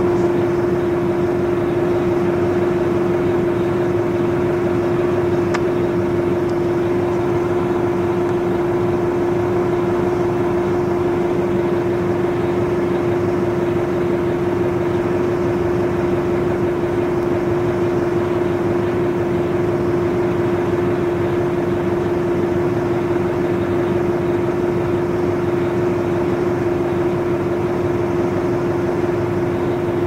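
1994 TMC RTS transit bus with a Detroit Diesel Series 50 four-cylinder diesel and Allison V-731 transmission, running steadily with a strong hum that holds one pitch, with no gear changes or revving.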